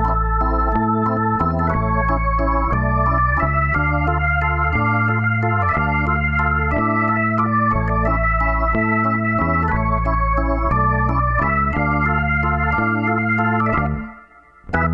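Background music: keyboard chords over a bass line, the notes changing about every half second to a second. It breaks off briefly near the end.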